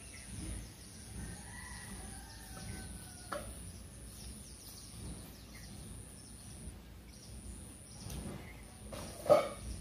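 Outdoor rural ambience with birds chirping and calling faintly. There is a single sharp knock about three seconds in, and one short loud sound near the end.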